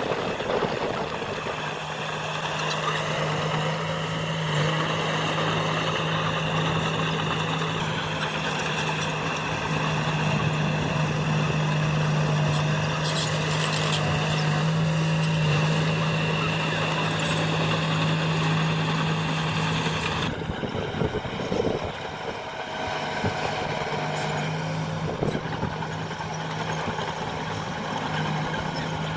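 Heavy diesel engine of earthmoving machinery running steadily under load, with a thin high whine above it. The engine note drops away for a moment about twenty seconds in, then picks up again.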